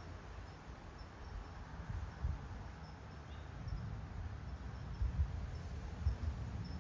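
Uneven low buffeting of wind on the microphone, with faint high chirps repeating about twice a second in the background.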